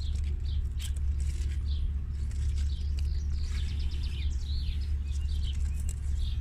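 Small songbirds chirping and twittering repeatedly, short quick high notes throughout, over a steady low rumble.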